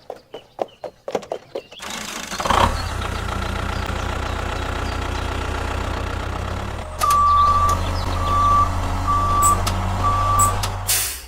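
A mini tractor's engine starts after a few light clicks and runs at a steady low hum. It gets louder about seven seconds in, and a reversing alarm beeps four times, about once a second, before everything cuts off.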